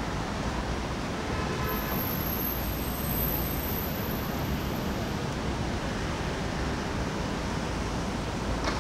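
Steady outdoor city hum of distant traffic, with a brief faint horn-like tone about a second and a half in.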